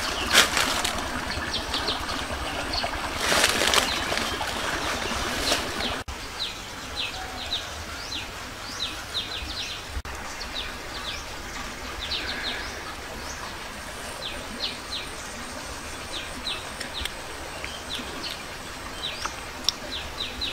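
Forest birds chirping over and over, each call a short falling chirp. A few loud noisy bursts come in the first few seconds.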